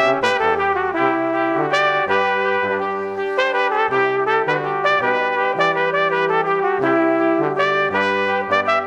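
Background music led by brass, trumpet-like melody over a bass line, with notes changing about every half second.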